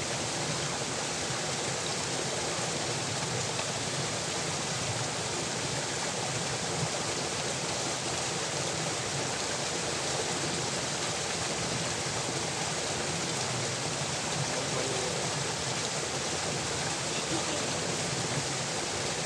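Steady rushing of water flowing through a rice-field irrigation channel, an even, unbroken noise.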